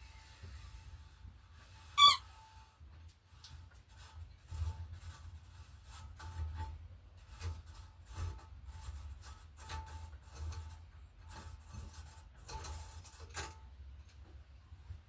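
Hand tools working bicycle parts during a strip-down: a short, loud squeak about two seconds in, then scattered metallic clicks, scrapes and rubbing.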